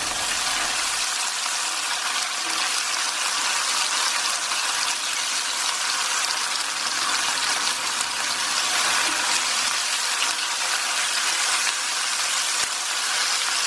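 Ginger-garlic paste, onions and red chillies sizzling steadily in hot oil in a pan.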